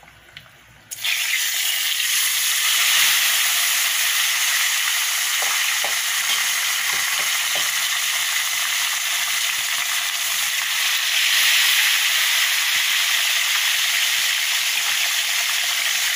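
Whole tilapia frying in hot oil in an aluminium wok: a loud, steady sizzle that starts suddenly about a second in.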